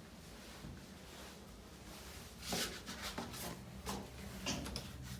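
Low steady room hum, then from about two and a half seconds in a run of irregular knocks and scuffs, about half a dozen.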